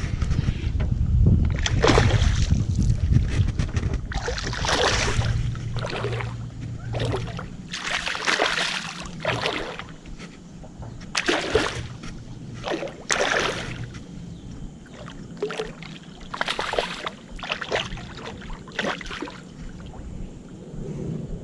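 Water sloshing and splashing in short irregular bursts, with wind rumbling on the microphone for the first several seconds.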